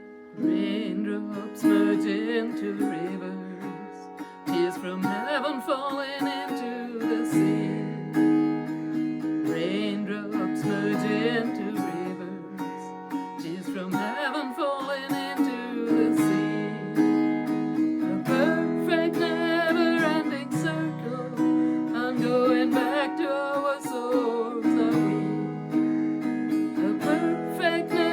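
Song with strummed acoustic guitar and a singing voice held in long, wavering notes.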